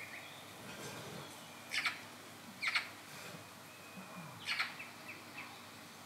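Songbirds chirping: three short, louder calls about two, three and four and a half seconds in, with a few fainter notes between, over a steady faint outdoor hiss.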